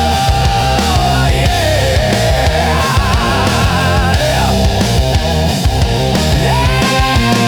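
Heavy rock music, instrumental at this point: a held melody line that wavers and bends over a dense, driving low end with a steady beat.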